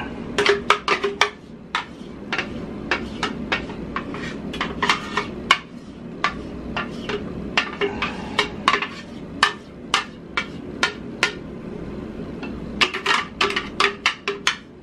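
A spoon knocking and scraping inside a plastic blender jar as batter is scraped out into a baking dish: a long irregular run of sharp taps, about two or three a second.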